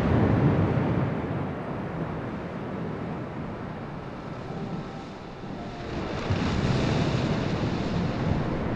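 Ocean surf: waves breaking and washing on a beach, surging, easing off, then swelling again about six seconds in, with some wind on the microphone.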